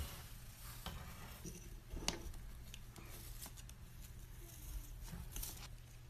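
Faint, scattered scratches and ticks of a white-bellied caique's claws and beak against a hardwood floor and baseboard as it rolls and rubs its head along the floor, over a low steady hum.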